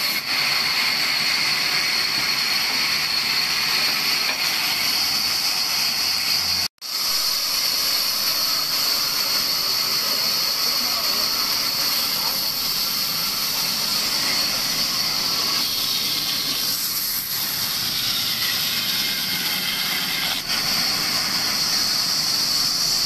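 Large vertical band saw running and cutting through dry logs: a steady, even hiss with a strong high edge from the blade in the wood. About seven seconds in, the sound cuts out for an instant, then the same sawing carries on.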